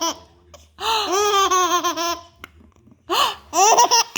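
Baby laughing in high-pitched, quick pulsed giggles: a long run of laughter starting about a second in, then two shorter bursts near the end.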